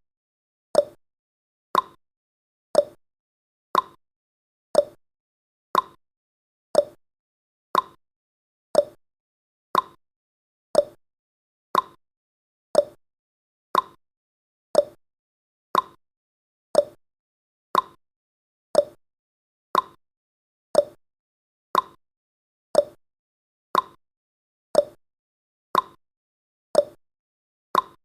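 Clock-style tick-tock sound effect of a countdown timer: short ticks about once a second, alternating between a higher and a lower tick.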